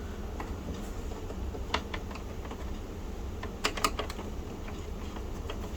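Scattered small sharp clicks and taps of metal parts being handled: a clip-on speed nut being worked onto an expansion card's metal bracket, with a brief cluster of louder clicks a little past halfway.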